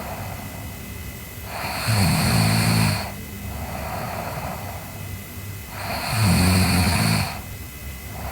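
A sleeping girl snoring: two loud snores about four seconds apart, each lasting a little over a second, with softer breathing in between.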